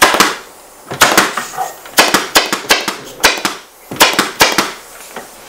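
Pneumatic staple gun firing staples through upholstery webbing into a wooden chair seat frame. More than a dozen sharp shots come in quick clusters of two to four, with short pauses between them, as each strap of webbing is fastened down.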